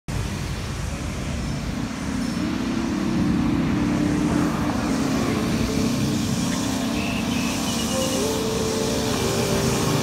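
Engine and road noise from a vehicle driving along a city street, with passing traffic. The engine note grows louder about two seconds in and stays steady.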